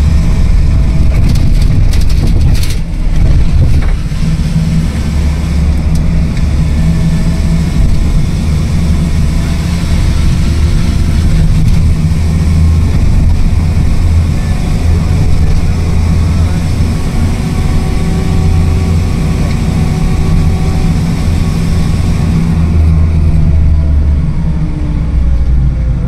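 Vehicle engine and road noise heard from inside a moving vehicle: a steady low rumble, with the engine note slowly rising and falling. A few short knocks come in the first three seconds.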